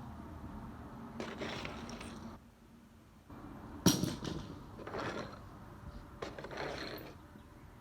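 Handling noises: several short stretches of scraping and rustling, with one sharp click or knock about four seconds in.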